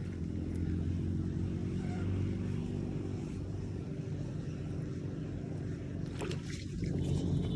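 A small engine running steadily with a low drone, with a few light clicks about six seconds in.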